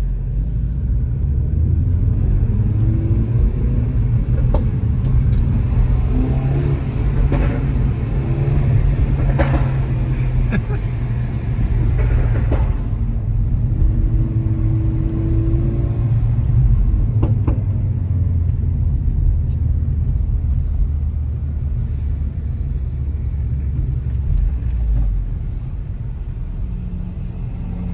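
Renault Megane RS's turbocharged 1.8-litre four-cylinder engine and exhaust running loud, a deep steady drone with a few sharp pops about a third of the way through, heard driving through a tunnel.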